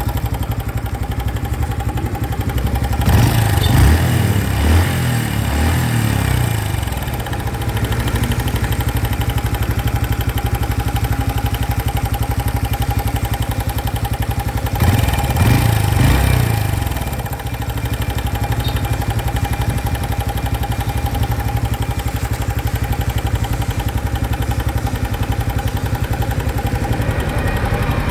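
Honda Biz 2025 single-cylinder engine idling with a steady whine over it, revved twice, each rev rising and falling back over a few seconds. It is the new engine noise that the owner counts as a fault on the new bike.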